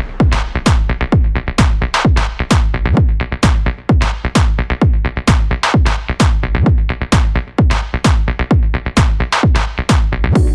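Background electronic dance music with a steady, fast four-on-the-floor kick drum.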